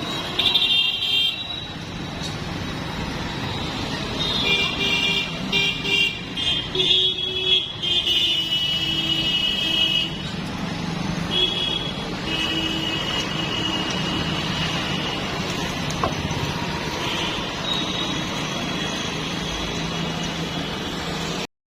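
Street traffic with engines running and vehicle horns honking repeatedly, in several short toots and a few longer blasts.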